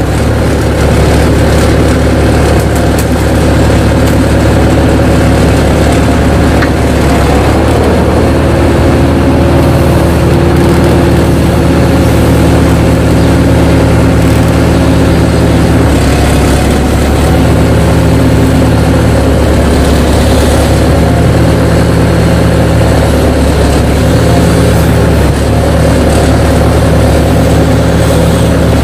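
Crawler excavator's diesel engine running steadily at working speed, its low note dipping briefly about halfway through and again near the end.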